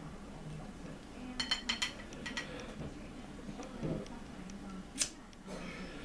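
Sharp clicks of a handheld disposable lighter being flicked: a quick cluster of clicks about a second and a half in, and one crisp click about five seconds in, over a low room hum.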